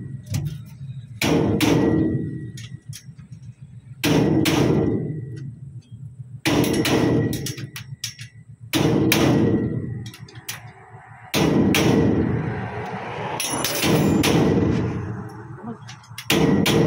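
Hammer blows on steel signboard fittings, struck mostly in pairs every two to three seconds, each blow ringing out briefly. The work is knocking back a steel part that has splayed open.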